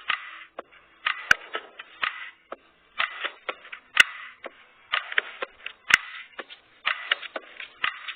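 Thin-sounding backing track of a pop song in an instrumental gap between sung lines, with a beat about once a second and a few sharp clicks.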